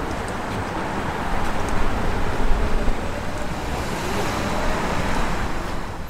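Wind buffeting the microphone over a steady rolling rumble while inline skating at speed, swelling a little in the middle.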